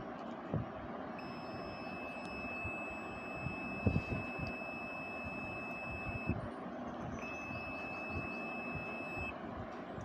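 ANENG digital multimeter's continuity buzzer giving a steady high beep while its probes bridge the refrigerator compressor's winding terminals: one beep of about five seconds, then after a short break another of about two seconds, showing continuity through the winding at about 33 ohms. A few light knocks from the probes being handled.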